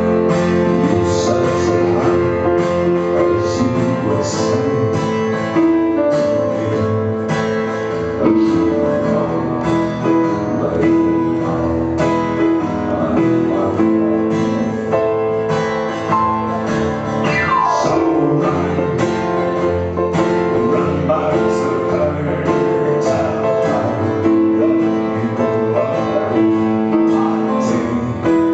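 A band playing live: an instrumental stretch led by guitar, with sustained notes over a steady beat.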